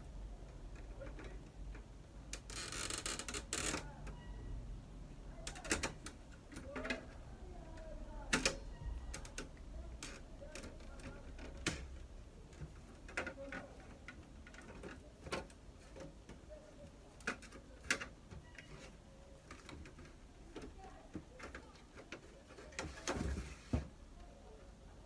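Plastic casing of a Samsung ML-1660 laser printer being pried and unclipped by hand: scattered clicks and knocks, with a scraping rasp about three seconds in and another near the end.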